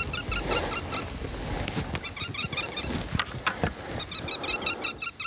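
A bird calling in three bursts of about a second each, each burst a rapid run of short, high notes.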